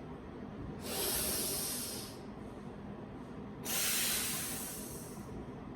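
A woman breathing twice through the nose, two long hissing breaths of about a second and a half each, part of a yoga breathing exercise.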